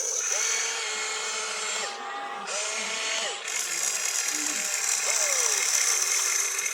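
Small electric motors and plastic gearboxes of an RC construction toy whirring, each run rising in pitch as it starts, holding, then falling away as it stops, several times over a steady high whine.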